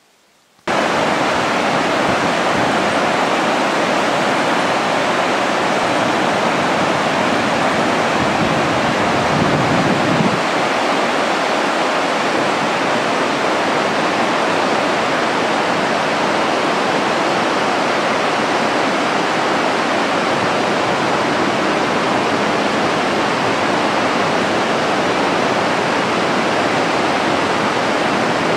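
Waterfall, a steady loud rush of falling water that cuts in abruptly under a second in.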